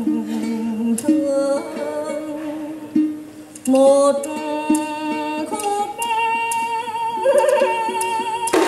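Ca trù instrumental passage: a đàn đáy long-necked lute plucks sliding, wavering notes while the singer's wooden phách clappers click sharply along with it.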